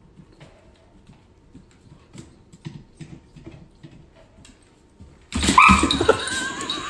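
A dog's claws clicking faintly and irregularly on a hardwood floor as it walks. About five seconds in, a loud, high, wavering cry breaks in suddenly.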